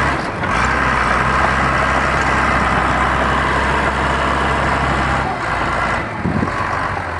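Case 850G crawler dozer's diesel engine running steadily while working dirt, its note shifting briefly about five and six seconds in.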